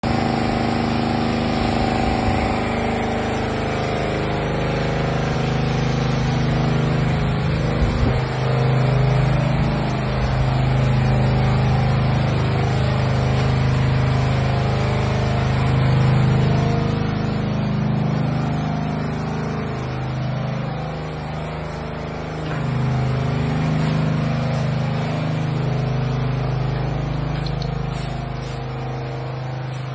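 A steady engine drone with a low hum whose pitch drifts slightly up and down, running throughout.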